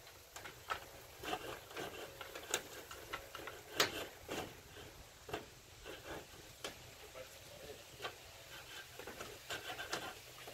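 Irregular clicks, taps and short scrapes of insect screening being worked into a porch screen frame by hand and with small hand tools.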